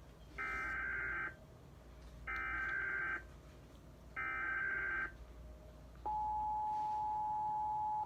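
United States Emergency Alert System alert: three short buzzy data bursts of the digital header, about a second each, then the steady two-tone attention signal starting about six seconds in.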